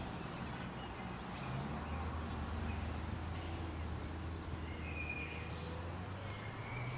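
Garden ambience with the low steady hum of a vehicle engine that rises in pitch near the end, and a few faint bird chirps.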